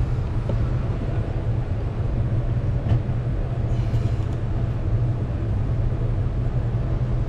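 A steady low rumble, with a faint knock about three seconds in and a short rattle about four seconds in.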